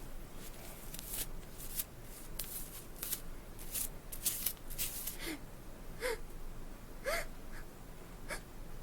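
A person sniffing in a run of quick short breaths, then four small squeaky gasps that fall in pitch: the build-up before a sneeze.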